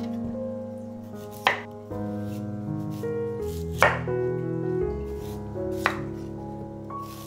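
Chef's knife chopping through a white radish onto a wooden cutting board: three sharp chops about two seconds apart, over soft background music.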